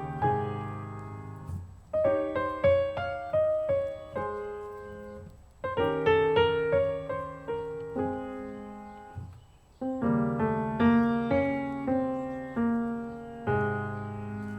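Solo piano music: slow phrases of struck notes and chords, each dying away, with brief pauses between phrases.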